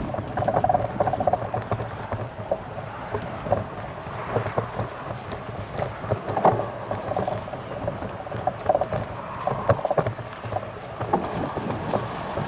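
Bicycle in motion: steady road noise from the tyres and frame, broken by many irregular clicks and rattles as the bike runs over the road surface.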